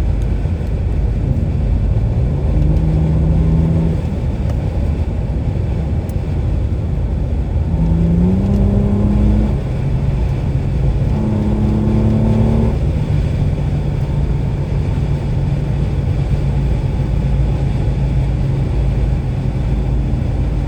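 BMW 750Li twin-turbo V8 running under way with a steady rumble. Its note rises and holds a few times in the first half, then settles into one steady tone for the rest.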